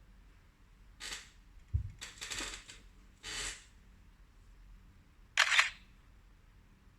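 Smartphone camera shutter sound played as photos are taken, four short clicks spread over several seconds, the last the loudest, with a low knock of the phone being handled about two seconds in.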